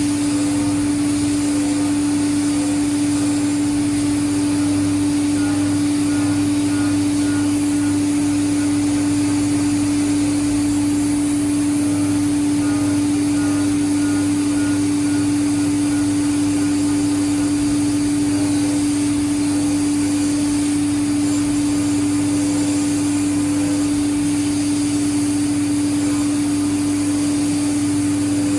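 Haas CNC mill roughing a small titanium part with a 1/8-inch five-flute endmill under through-spindle coolant: a steady machine hum with one strong held pitch over an even hiss, unchanging throughout.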